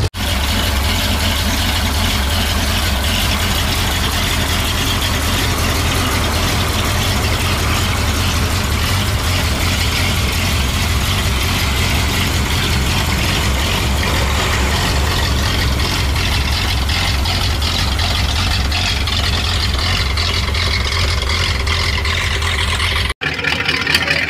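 Ford flathead V8 idling steadily. About a second before the end it cuts to another flathead V8 running.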